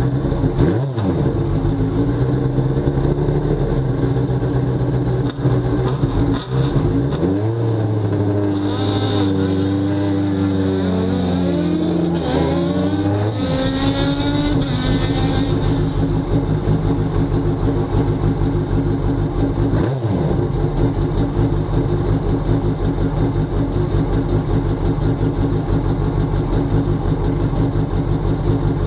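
Engine of an Elia Avrio ST 09 Evo sports-prototype race car, heard from the cockpit. In the first half it idles with throttle blips and rising and falling revs as the car pulls slowly forward; after that it idles steadily.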